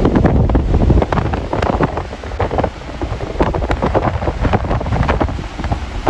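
Strong, gusty storm wind buffeting the microphone: a loud, uneven low rumble broken by irregular crackling pops.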